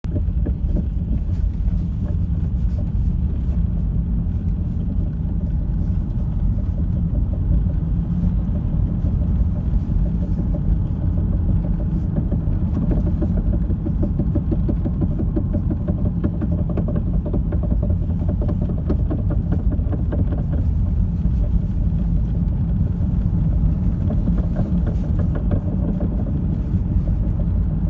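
Nissan Qashqai running with a steady low rumble and a faint, rapid knocking over it, most noticeable around the middle; the owner doesn't know what is causing the knock.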